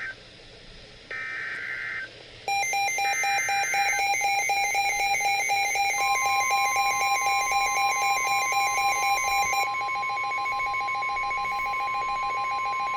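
Weather radio emergency alert: three short buzzy data bursts of the digital alert header, then a rapid pulsing electronic alarm beep starts about two and a half seconds in. About six seconds in, the long steady weather radio warning tone joins it. Together they signal that a new warning, here a severe thunderstorm warning, is about to be broadcast.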